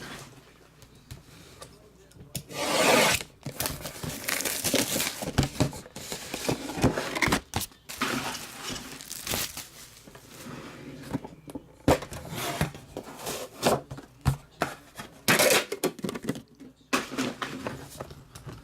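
Plastic wrapping on a trading card box crinkling and tearing as it is pulled open, with irregular bursts of rustling and handling, the loudest about three seconds in and again near the end.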